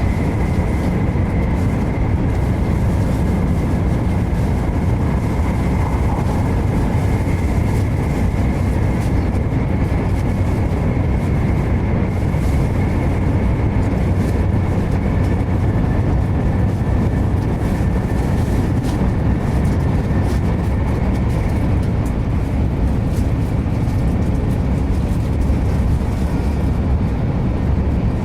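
Shinkansen bullet train running at speed, heard from inside the passenger cabin: a steady low rumble and rush of air, with a faint high whine held throughout.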